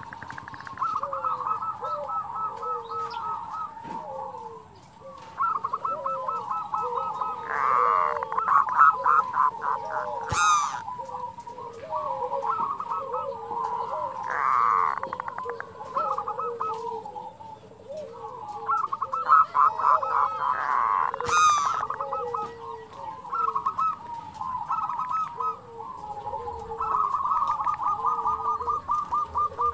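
Zebra doves (perkutut) singing: repeated runs of rapid, staccato cooing notes lasting a few seconds each, with lower coos in between. Two short sharp sounds break in, about a third of the way through and again about two thirds through.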